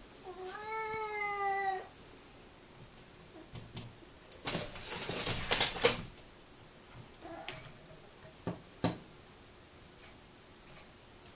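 A domestic cat gives one long meow, crying to get out the door. A few seconds later comes loud scratching and rattling as it claws at the screen door, then a short, quieter meow and two knocks.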